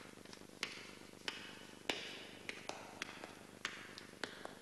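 A string of faint, sharp taps, irregularly spaced at about one to two a second, each with a short hissy tail.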